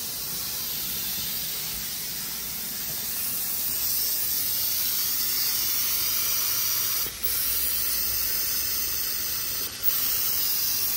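Compressed air hissing steadily through a pneumatic vacuum bleeder, growing louder about four seconds in and cutting out briefly twice near the end.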